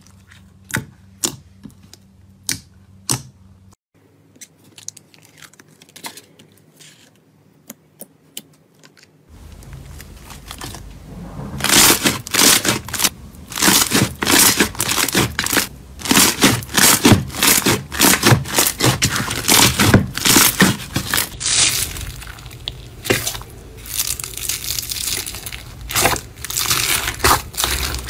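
Hands squeezing, stretching and pressing slime in a bowl: sticky pops and crackles. They are sparse at first, and from about twelve seconds in they become a dense, louder crackling.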